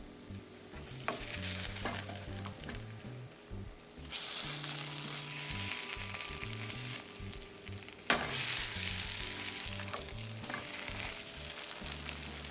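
Battered French toast frying in butter in a nonstick skillet, a steady sizzle that gets louder about four seconds in as a slice is turned onto its raw side. A slotted plastic spatula scrapes and taps the pan a few times, with one sharp knock about eight seconds in as the loudest sound.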